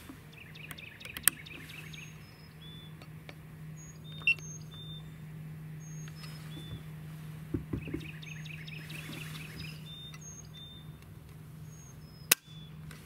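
Sharp clicks from a Ruger PC Carbine's action as its trigger is drawn through by a trigger-pull gauge and breaks on an empty chamber, the loudest click near the end. Birds chirp and a steady low hum sounds behind.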